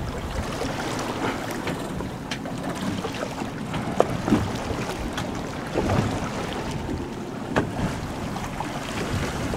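Wind on the microphone and choppy sea water against a boat, with a few scattered sharp knocks, the loudest about four seconds in.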